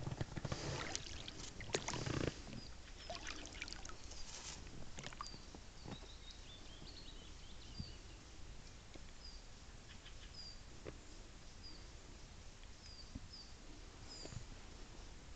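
A small boat on calm water: knocks and water noise in the first two seconds or so, then a few soft scattered knocks. Over it a small bird repeats a short, high, falling chirp about once a second.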